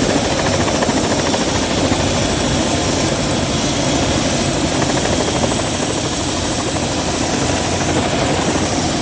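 Helicopter running on the ground close by: a loud, steady rush of engine and rotor noise with a thin high whine over it.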